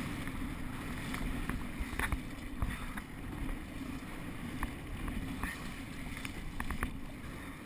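Kayak paddle strokes in sea water, each with a splash and drips, over wind rumbling on the microphone, with a few sharp ticks scattered through.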